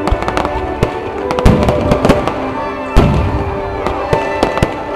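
Fireworks going off in quick succession: many sharp bangs and crackles, the loudest about one and a half and three seconds in, with music playing underneath.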